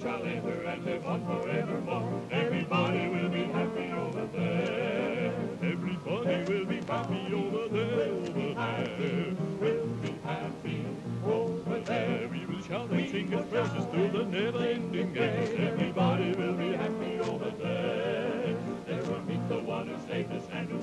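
Gospel song: voices singing with strong vibrato over a bass accompaniment that steps in a steady beat.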